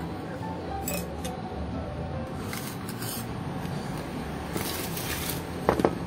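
A glass jar and tools clink faintly as they are handled on a workbench, with a sharper clink near the end, over a steady low hum.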